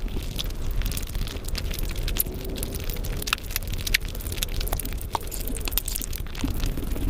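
Close-miked eating: a person chewing a mouthful of biryani, with many quick, sharp wet clicks and crackles from the mouth and the rice.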